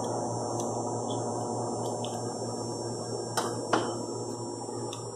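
Steady electrical hum in the background, with two sharp metal clinks a little past the middle as small steel parts of a plug valve are handled.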